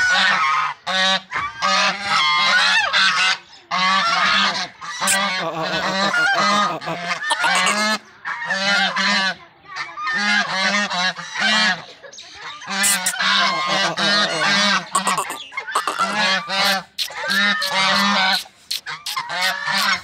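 A small flock of white domestic geese honking over and over, harsh calls following one another with only short breaks.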